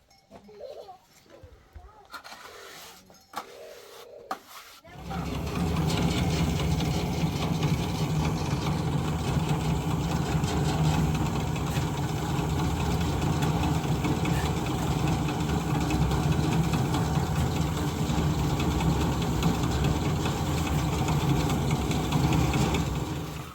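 An engine starts about five seconds in and runs steadily and loudly, then cuts off abruptly near the end.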